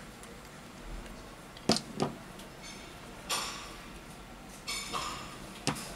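Plastic spring clamps being clipped onto the edges of a smartphone to press the newly fitted display, with sharp plastic clacks: two close together about two seconds in and one near the end, and softer handling rattles in between.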